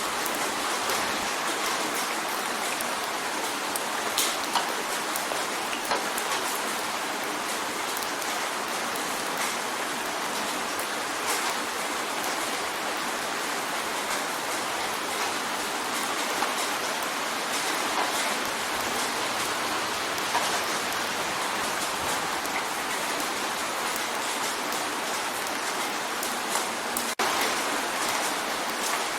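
Steady rain drumming on a window, a continuous hiss of rain with scattered individual drops ticking against the glass.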